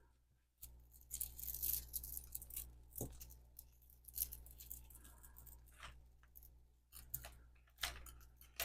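Faint rustling and scattered light clicks of a tangled necklace being handled and pulled free.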